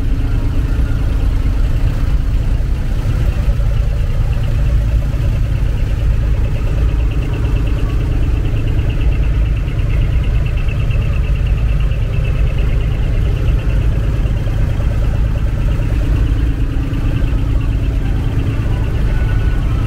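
Truck engines idling steadily in a row of parked trucks: a continuous low rumble with a fast flutter, and a fainter high buzz over it through the middle.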